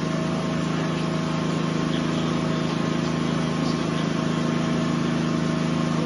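A steady, unbroken mechanical drone with a low hum and a couple of fainter higher tones held through.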